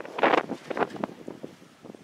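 Wind buffeting the camera microphone in uneven gusts, dying away over the second half.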